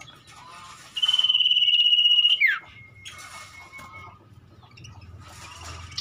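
Common iora giving one long, steady high whistle of about a second and a half that ends in a quick downward slur, followed by a fainter, lower held whistle.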